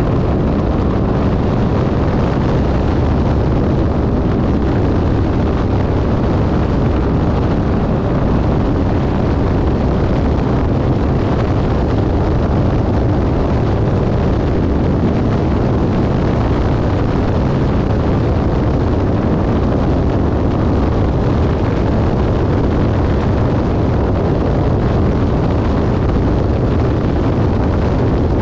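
Turbocharged Can-Am UTV engine running hard at racing speed over a dirt road, with tyre and gravel noise and heavy wind buffeting on the onboard microphone.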